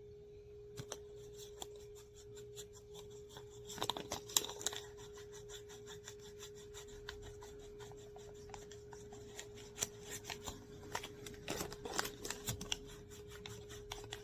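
Quick, rhythmic rubbing strokes as a gas furnace's flame sensor rod is polished by hand with a paper bill to clean it, louder in stretches. A steady hum runs underneath.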